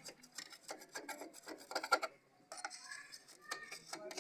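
Irregular rasping, rubbing strokes as the spot on the back of a solar panel where the old junction box was removed is scrubbed clean.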